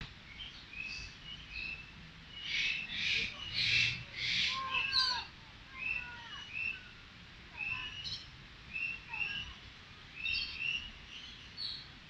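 Several birds calling: repeated short chirps, with a run of four loud, harsh screeches about two and a half to four and a half seconds in.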